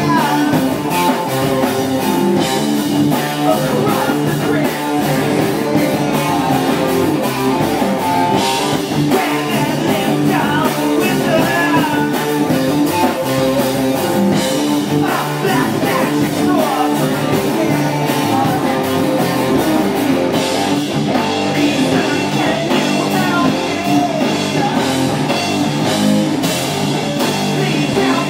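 Live rock band playing loud: two electric guitars, a bass guitar and a drum kit with cymbal crashes.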